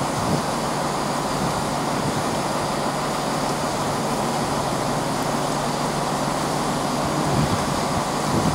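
Chiltern Railways Class 165 diesel multiple unit idling at the platform: a steady engine hum with a low drone underneath.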